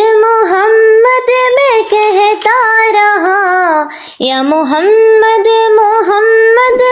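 A naat sung by one high voice, a melody with ornamented glides between notes and no instruments heard under it. A short break about four seconds in.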